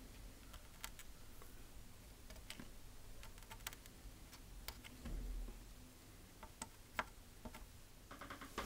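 Soldering iron tip and copper solder wick working over corroded capacitor pads on a logic board, wicking them clean: faint, scattered ticks and small crackles, with a quick run of clicks near the end.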